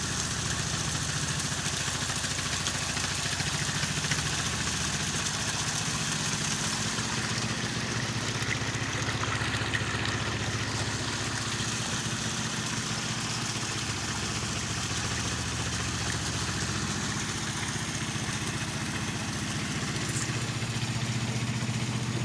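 Water gushing steadily from a 3-inch irrigation outlet fed by a solar-powered pump, over a steady low mechanical drone.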